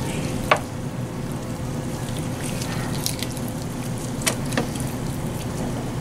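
Wet eating sounds as roast turkey meat is pulled apart by hand and eaten: a few short sharp smacks and clicks over a steady background hum.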